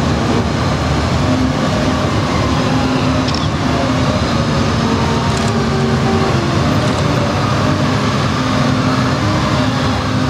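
A column of white police motorcycles riding past at slow parade pace, their engines running together in a steady blend of engine notes.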